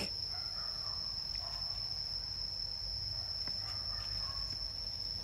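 Insects droning steadily at one high, unchanging pitch.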